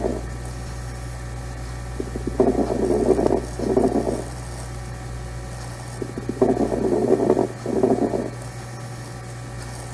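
Stethoscope recording of lung sounds with coarse crackles: two breaths, each an in-and-out pair of muffled breath sounds, about four seconds apart, with crackling ticks at the start of each breath. Coarse crackles come from fluid in the larger airways and can point to COPD or bronchitis.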